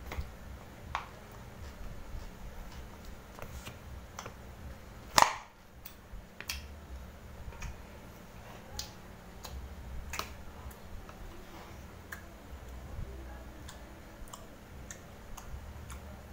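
Eating sounds: scattered mouth clicks and smacks while chewing, with light clicks of a spoon and plastic container. One sharp, much louder clack about five seconds in. A steady low hum underneath.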